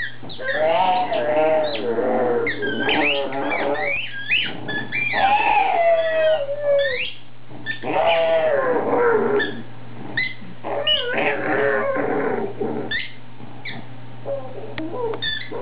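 A pug mouthing a plush squeaky toy, making it squeak again and again, while she lets out her half growl, half howl in several wavering bouts, a sign of getting riled up over the squeaking.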